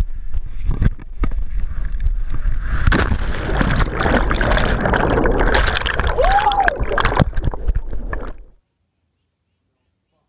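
Wind buffeting the jumper's point-of-view camera during a 68-foot bridge jump. About three seconds in comes the plunge into the river, followed by loud underwater rushing and bubbling. Near the end it cuts off to near silence with a faint steady high-pitched insect trill.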